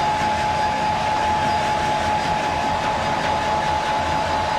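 Blow dryer running steadily, blowing air through a dog's thick double coat: a constant rush of air with a steady whine from the motor.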